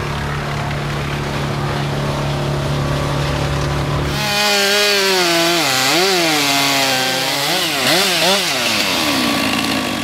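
A wood chipper's engine runs with a steady drone while leafy branches feed in. About four seconds in, a Stihl chainsaw takes over, cutting into a log, its engine pitch dipping and rising again and again as it cuts.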